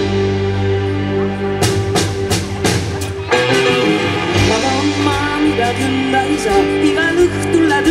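Live rock band playing: electric guitar and bass guitar holding chords over a drum kit. A quick run of drum hits comes about two seconds in, then a wavering melody line rises over the band.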